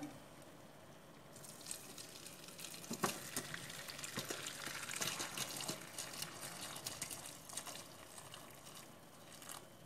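Hot cooking water pouring from a stainless steel pot of boiled melon cubes into a plastic colander and splashing through it. The pour starts about a second in, with a light knock about three seconds in.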